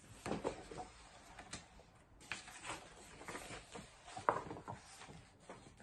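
Faint rustling and soft knocks of a hardcover picture book being handled and a page turned, with scattered short clicks, the loudest about four seconds in.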